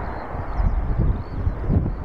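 Boeing 737-800 airliner on approach, the steady rush of its CFM56 jet engines with gusts of wind buffeting the microphone.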